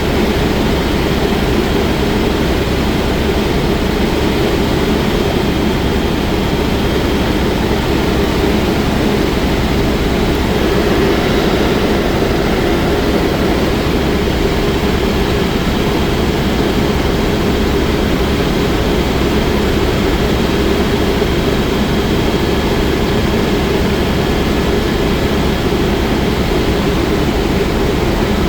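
Helicopter in flight: a loud, steady drone of turbine engine and rotor with no change, and a faint constant high whine above it.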